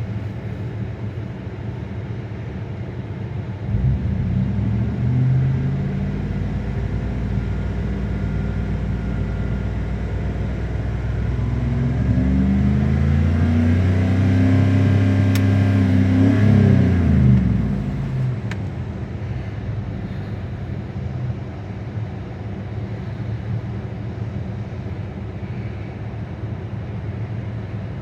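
Car engine with a misfire on cylinder 2 running: it picks up speed about four seconds in, runs higher still from about twelve seconds, then drops back near eighteen seconds to a steady low running.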